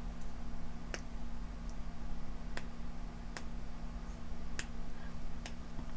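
A handful of sharp, irregularly spaced clicks and snaps as fingers work at a bundle of green-wrapped 18650 lithium-ion cells taken out of a laptop battery pack, over a steady low hum.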